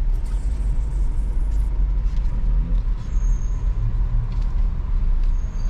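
Low, steady rumble of a motor vehicle running.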